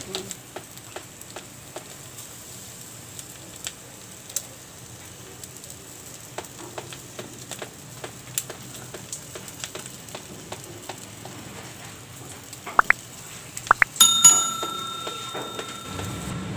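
Chicken sizzling on a charcoal grill, with fat and embers crackling in scattered sharp pops over a steady hiss. About fourteen seconds in, a few quick clicks and a ringing bell-like chime come from a subscribe-button animation sound effect.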